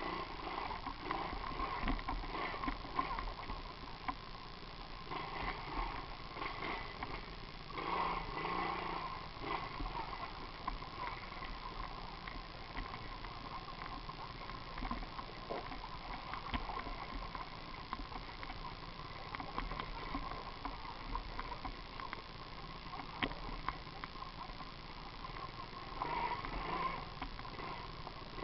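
Mini moto's small engine running, its pitch and loudness rising and falling in swells.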